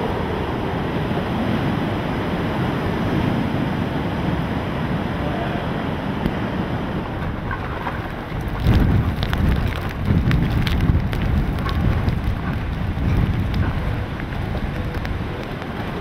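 Hurricane wind and rain: a steady wind rush that builds into heavier gusts rumbling on the microphone about halfway through, with rain ticking and spattering.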